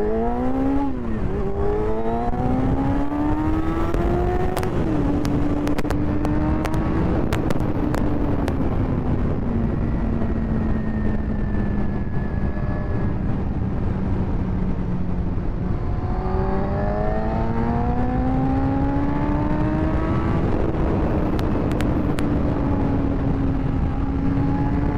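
1998 Yamaha YZF600R Thundercat's inline-four engine accelerating hard through the gears on a 0–100 km/h run, its note rising with two upshifts in the first few seconds. It then settles to a cruise that sags slowly, picks up again about two-thirds of the way through and holds steady. Heavy wind rush on the microphone runs throughout.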